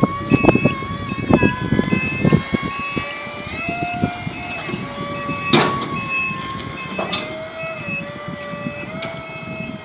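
2004 SkyJack SJ3220 electric scissor lift driving: the drive motor whines steadily, its pitch shifting a little as it changes speed, while the motion alarm beeps about twice a second. The chassis and platform rattle and knock over the first few seconds, and there is a sharp clack about five and a half seconds in.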